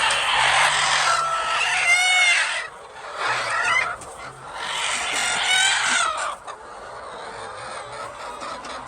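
A flock of chickens clucking together, with two drawn-out arched calls standing out, one about two seconds in and one about five and a half seconds in. The flock quietens somewhat in the last couple of seconds.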